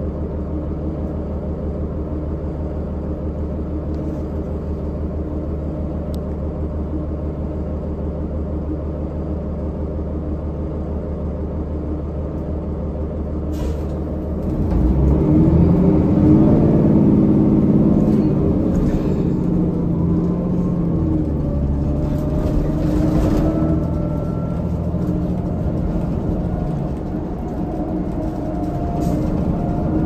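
A New Flyer D40LFR transit bus's Cummins ISL diesel engine, heard from inside the passenger cabin, idling with a steady hum. About halfway through, the engine note jumps louder and climbs as the bus pulls away, with a thin rising whine from the Allison automatic transmission as it gathers speed.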